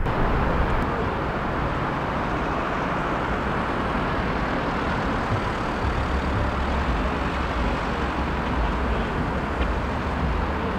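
Road traffic: cars driving past on a multi-lane street, a steady wash of tyre and engine noise with a low rumble.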